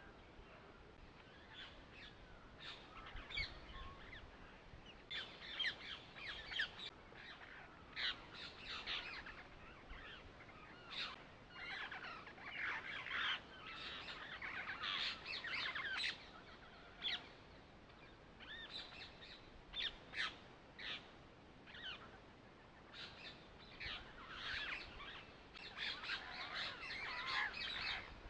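Birds chirping and calling in many short, quick notes that come in bunches with brief pauses between them.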